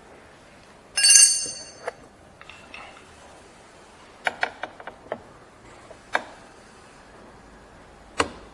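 Plastic door card of a VW Golf Mk8 rear door being pried off its retaining clips with a plastic pry tool. About a second in there is a loud, short high-pitched squeak of plastic under strain. After it come sharp clicks and snaps, several in quick succession around the middle, as the clips work loose.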